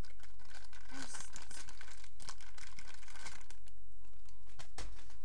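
Crinkly plastic packet being handled and squeezed, a dense rustling crinkle that thins out after a few seconds, with a single sharp knock near the end.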